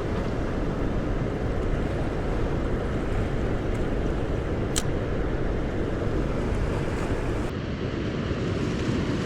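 Steady low rushing of the swollen river below the dam, muffled by a waterproof camera housing, with a single sharp click about five seconds in.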